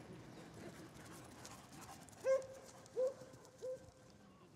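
Dog giving three short, high-pitched barks about two-thirds of a second apart, each quieter than the one before.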